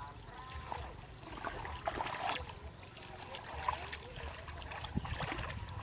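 Hands sloshing and scooping through shallow muddy water, with small irregular splashes and trickles.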